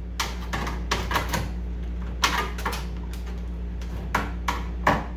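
Screwdriver tip scraping and picking old weather strip out of the steel window channel of a 1985 Chevy C10 door, giving irregular clicks and scrapes of metal on metal over a steady low hum.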